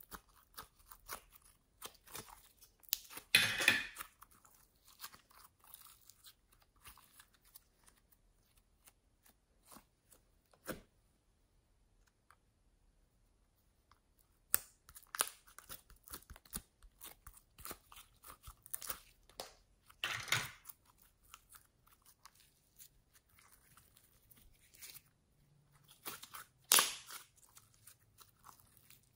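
Glossy slime being pulled out of plastic molds and squeezed by hand: sticky crackles and small clicks, with three louder bursts and a quiet stretch about halfway through.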